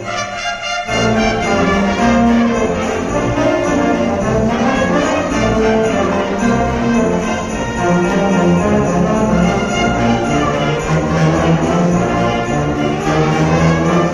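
Orchestra and wind ensemble playing a Christmas piece, with the brass prominent; the full ensemble comes in about a second in.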